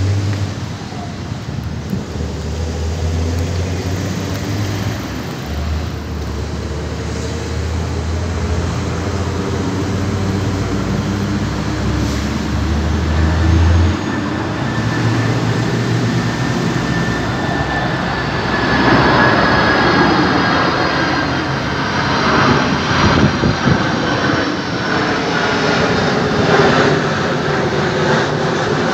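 A Boeing 767-300ER's jet engines droning on final approach as the airliner comes closer, with a deep rumble underneath in the first half. About two-thirds of the way through the sound grows louder, and a thin high whine glides slowly downward in pitch.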